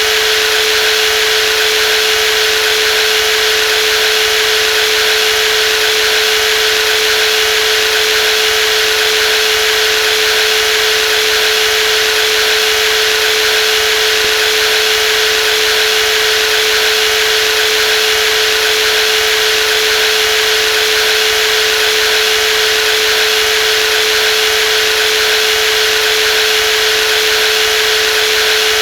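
Brushless jigsaw running steadily, a constant mid-pitched whine over an even high hiss, with no change in speed.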